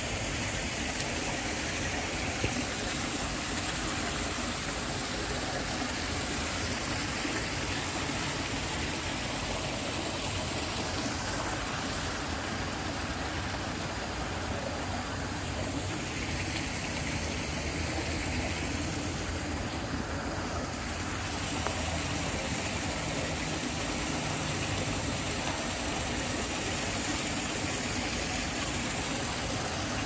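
Steady rush of shallow water flowing along a narrow lined drainage channel, with a steady low rumble underneath.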